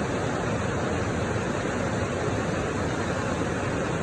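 River water rushing steadily, an even hiss without splashes or breaks.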